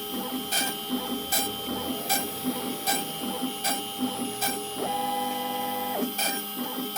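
DIY CNC router's stepper motors driving the axes, with regular ticking a little more than once a second over a steady machine hum; a steady pitched whine comes in for about a second near the end.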